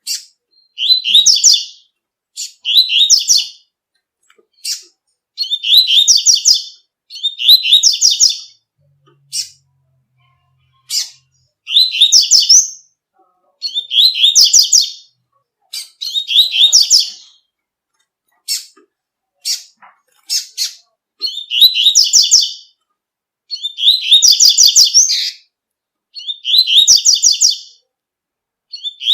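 Double-collared seedeater (coleiro) singing its tui-tui song: high-pitched phrases of about a second, repeated every couple of seconds, with single short thin notes between them.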